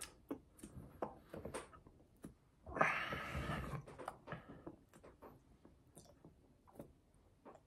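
A person chewing and smacking their lips while eating a fried chicken sandwich: a run of short wet clicks, with a longer, louder sound about three seconds in.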